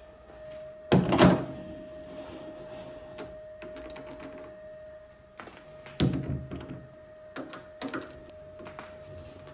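Steel lathe chuck being handled on a stopped lathe: a loud double metal knock about a second in as the four-jaw chuck goes onto the spindle, another knock about six seconds in, and lighter clicks near the end as the chuck key tightens the jaws. A faint steady hum sounds underneath.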